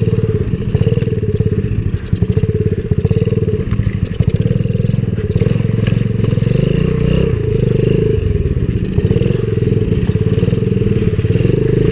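A Coolster 70cc pit bike's small single-cylinder four-stroke engine runs steadily as it pulls the bike through mud and puddles. A few short knocks come from the rough trail.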